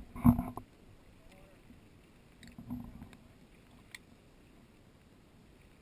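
Sea water slapping and sloshing against a GoPro's waterproof dive housing held at the surface, heard muffled through the housing. There is a loud thump just after the start and a smaller one near 3 seconds, with a few faint ticks, then a faint steady rumble.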